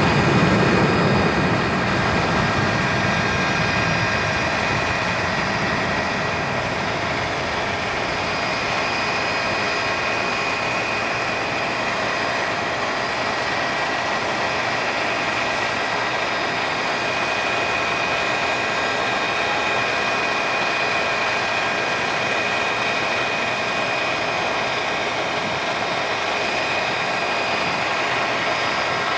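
Airbus A320-200's twin IAE V2500 turbofans at takeoff thrust: a steady jet rush with a high, steady fan whine at several pitches. The low end is fullest in the first couple of seconds as the plane rolls past, then the sound holds level as it climbs away.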